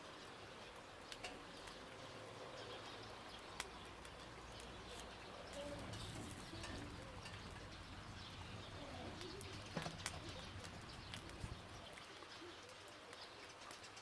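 Faint crackling of a wood and charcoal fire grilling pork neck, with scattered sharp pops, the loudest cluster about ten seconds in.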